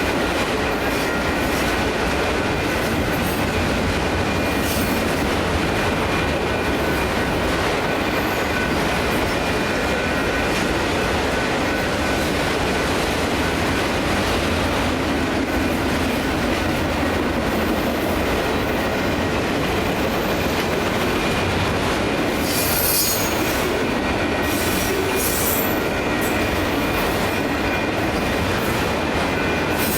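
Freight train of autorack cars rolling steadily past a grade crossing: continuous rumble and wheel clatter on the rails, with short bursts of high-pitched wheel squeal near the end.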